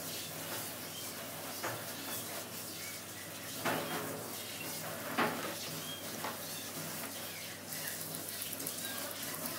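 Grooming scissors snipping fur around a small dog's face: a few sharp metal clicks, two louder ones a second and a half apart near the middle, over a steady background hiss.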